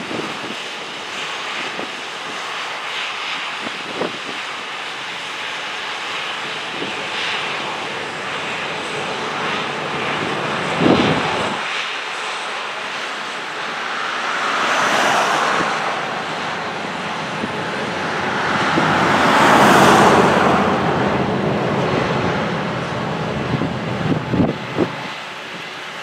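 Heavy harvest machinery running steadily, with a roar that swells louder twice in the middle as it comes closer and then eases off. A few small knocks are heard near the start and the end.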